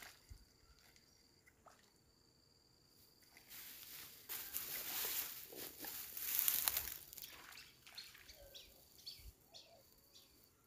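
Rustling and scraping of clothing against the microphone for a few seconds in the middle, then a few short bird chirps near the end.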